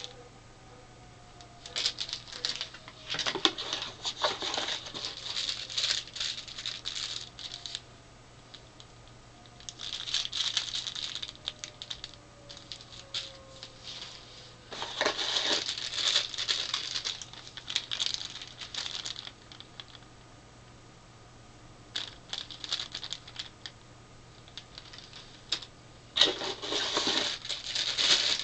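Thin clear plastic accessory bags crinkling and rustling as they are handled and opened, in irregular bursts a few seconds long with short pauses between.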